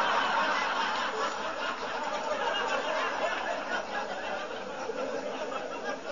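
Live audience laughing together in a hall after a punchline, loudest at the start and gradually dying down.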